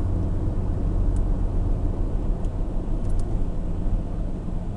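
Steady low road and engine rumble inside the cabin of a 2006 Chevy HHR rolling along the highway, with a few faint ticks.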